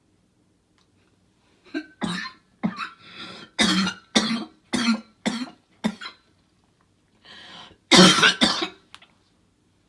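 A person coughing in a fit: a rapid run of about eight short coughs, a brief pause, then two or three louder, harder coughs near the end.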